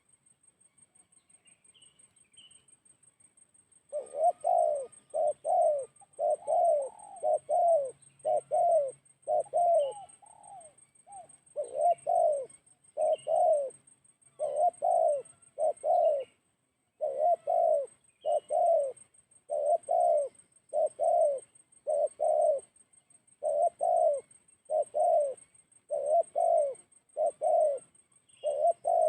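Spotted dove cooing over and over, starting about four seconds in: low coos in close pairs, repeated about once a second with a brief pause midway. Faint chirps of small birds sound now and then.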